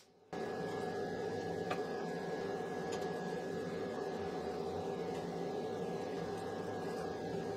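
A workshop tool running steadily with a constant hum, starting abruptly just after the start.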